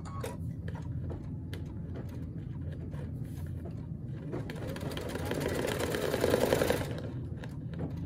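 Brother Luminaire XP1 embroidery machine stitching out a design on stabilizer, the needle running at a steady rapid pace. It grows louder for about two seconds past the middle.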